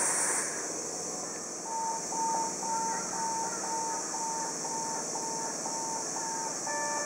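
Electronic warning beeps: one high tone, beeping about twice a second, starting a little under two seconds in, over a steady high hiss.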